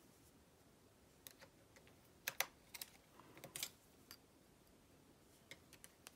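Faint, irregular light clicks of a transfer tool against the needles of a Silver Reed LK150 mid-gauge knitting machine as hem loops are picked up and hung on the needles, most of them in the middle.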